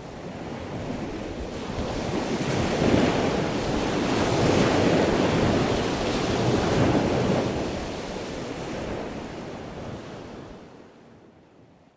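A rushing noise that swells to a peak in the middle and then fades away to nothing near the end.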